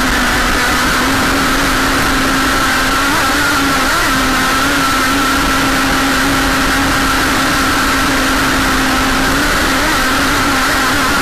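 Radio-controlled Jersey skiff model boat's motor running at a steady pitch, heard from a camera on its deck, over a hiss of wind and water. The pitch wavers briefly about three to four seconds in and again near the end.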